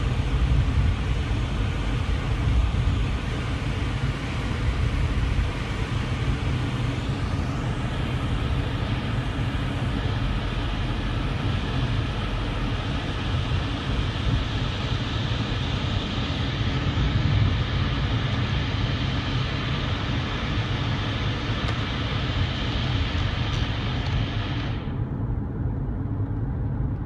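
Car air-conditioning blower on maximum: a steady rush of air over the low rumble of the vehicle. Near the end the high hiss of the air suddenly drops away, leaving the low rumble.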